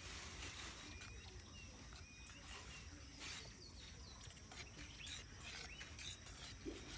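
Quiet outdoor ambience: a steady high-pitched insect drone with a few short bird chirps in the first couple of seconds, and soft scrapes and clicks of a plastic spoon stirring catfish eggs and milt in a plastic bowl.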